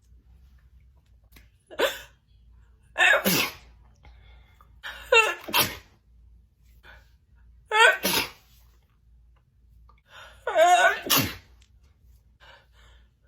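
A woman sneezing again and again in a messy, spraying sneezing fit: about five sneezes a couple of seconds apart, each a quick drawn-in 'ah' that breaks into a sharp 'choo'.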